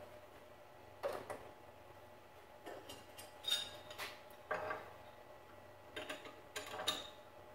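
Light metallic clinks and clicks, about seven at irregular intervals, as a tool holder with a 3/8 in roughing end mill is fitted into a benchtop CNC milling machine's spindle and tightened with a wrench.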